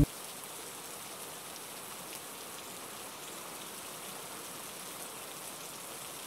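Steady rain ambience: an even hiss of falling rain with faint drop patter and no music.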